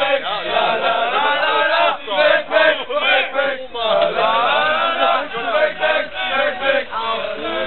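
A group of young men chanting a football supporters' chant together, loud and continuous.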